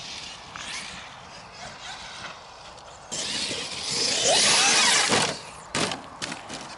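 Traxxas X-Maxx RC monster truck's electric motor running up with a short rising whine, starting suddenly about three seconds in and cutting off after two seconds. A few sharp knocks follow.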